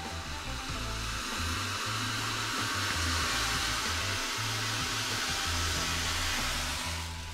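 Steady hiss from a gas stove burner under a saucepan of milk at the boil. It swells after about a second and drops away near the end, with a background-music bass line underneath.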